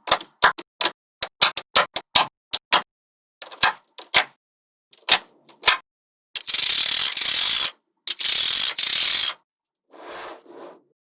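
Small magnetic balls snapping together, a quick run of sharp separate clicks for about the first six seconds. Then two steady rattling, hissing stretches of about a second each, and a fainter one near the end.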